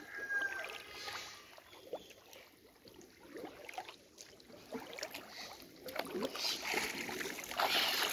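Water sloshing and splashing as people wade waist-deep and drag a hand net through a shallow river, the splashing growing louder and denser in the last couple of seconds.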